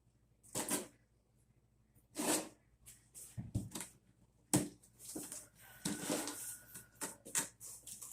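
Irregular rustling and clattering as the parts and packaging of a bucket-lid wet/dry vacuum kit are handled, in short bursts about a second apart.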